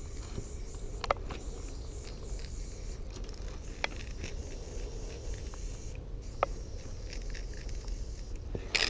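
Aerosol spray paint can hissing as highlight dots are sprayed onto a train's side, the spray stopping briefly twice, with a few faint clicks and a louder spray burst near the end.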